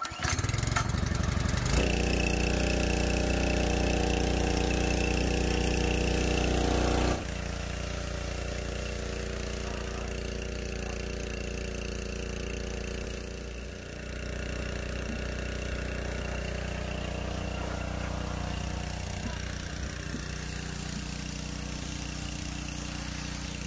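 Small petrol engine of a portable pressure washer running steadily while its jet sprays water. The sound drops suddenly to a lower, still steady level about seven seconds in.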